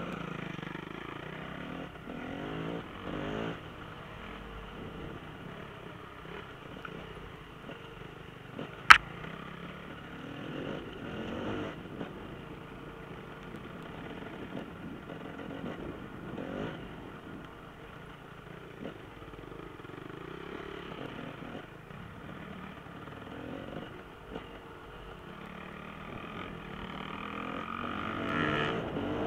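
Enduro motorcycle engines revving as they pass, the pitch rising and falling with each pass. There is one sharp click about nine seconds in.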